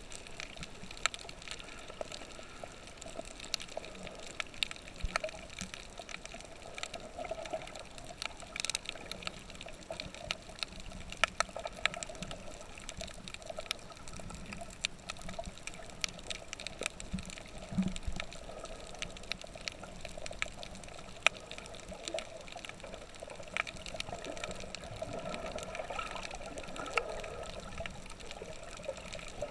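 Moving water sloshing and trickling, with many small clicks and crackles throughout.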